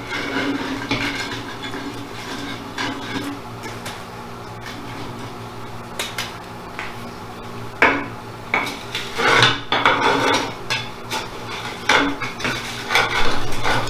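Metal tool scraping and clinking inside the coolant reservoir in a milling machine's base, digging out old sludge and loose bits. Irregular scrapes and knocks, sparse at first and busier in the second half.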